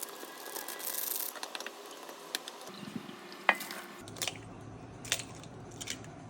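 Cooking sounds: scattered clinks and taps of utensils against a pan or bowl, with stirring over a faint steady hiss; the background changes abruptly twice.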